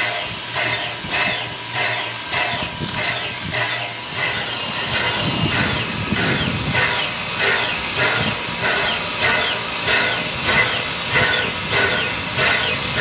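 Steam locomotive Everett Railroad No. 11 standing with steam hissing, its air pump working in a steady beat of about two strokes a second.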